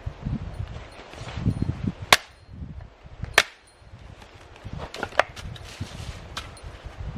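Firewood being chopped: two sharp blade strikes into wood a little over a second apart, then a few lighter knocks and cracks, over low rustling and handling noise.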